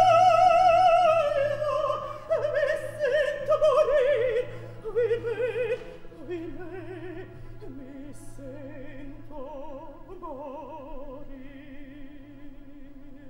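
A mezzo-soprano singing opera with a wide vibrato. She opens on a loud held high note, then falls through shorter phrases, and the music turns quieter about six seconds in.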